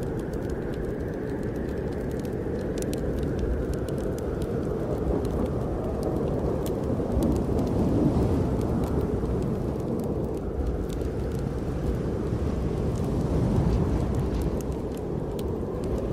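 Snowstorm wind blowing steadily outside, its howl slowly rising and falling in pitch, with a fireplace fire crackling in scattered small pops.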